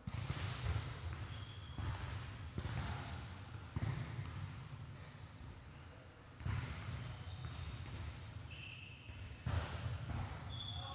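A series of dull thumps with rumbling, about six at irregular intervals, each trailing off, with a few short high squeaks around the middle and near the end.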